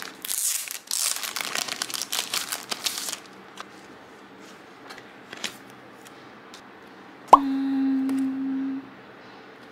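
Plastic packaging crinkling and tearing as it is opened for about three seconds, followed by a few light clicks. Later a sharp click leads into a tone that drops quickly in pitch and holds steady for about a second and a half.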